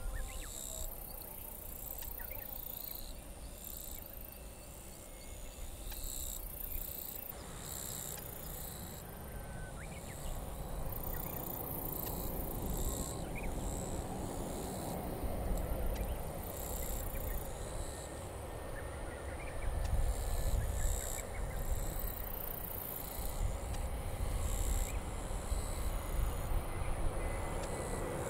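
Outdoor summer ambience: a shrill, high-pitched chorus pulsing on and off every second or two, a few short bird-like chirps, and the engine noise of an approaching Airbus A321neo airliner on final approach, growing gradually louder.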